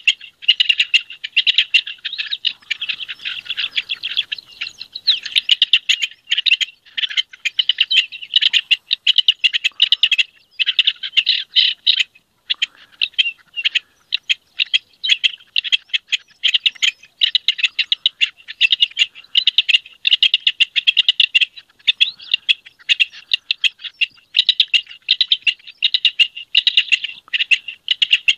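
Rock partridge singing its breeding-season courtship song: rapid, clipped notes repeated in long phrases, broken by short pauses.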